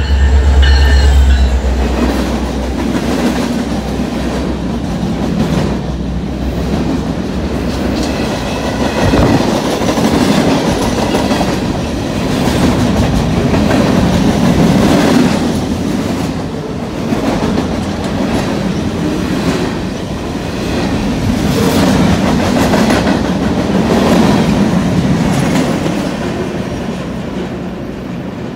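Norfolk Southern freight train passing close by. Its diesel locomotive rumbles loudly in the first couple of seconds, then the tank cars and hoppers clatter past with repeated clicks of wheels over rail joints. The sound fades over the last few seconds as the end of the train goes by.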